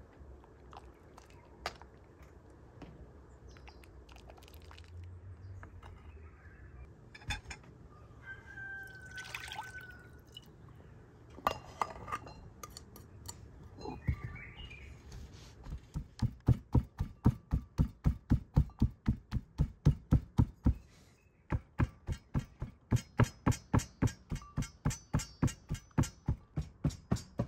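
Brass pestle pounding in a brass mortar, a little past halfway on, in a steady run of about three strokes a second with a short break, each stroke ringing metallically. Before it, a few scattered quieter knocks and clinks.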